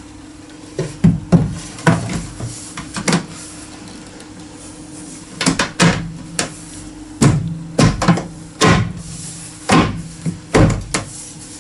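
Wooden wall panel knocking as it is pushed and tapped into place onto Button Fix panel fixings: a dozen or so sharp knocks in clusters, over a faint steady hum.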